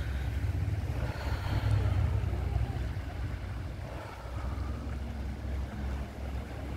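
Wind buffeting the microphone over the steady rush of the River Severn in flood, its fast brown water swirling past half-submerged trees.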